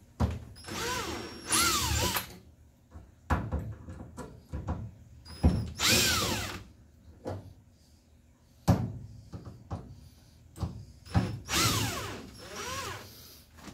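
Cordless drill/driver backing out three screws one after another. Each run lasts a second or two, and the motor's whine rises and falls in each. Small clicks and knocks come between the runs.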